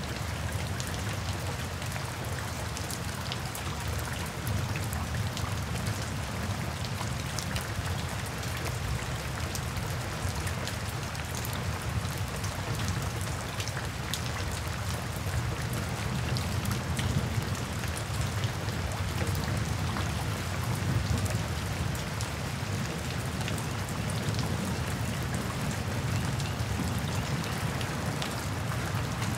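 Steady rain falling through trees: a constant hiss with many sharp ticks of single drops, over a low rumble.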